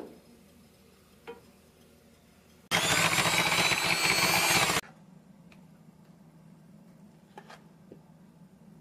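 Electric hand mixer whipping cream in a stainless steel bowl, running for about two seconds and cutting off abruptly. Two light knocks come before it.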